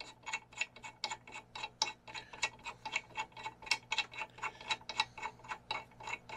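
Light metallic clicking, about four sharp clicks a second and somewhat irregular, as steel studs are screwed into a Dana 60 steering knuckle.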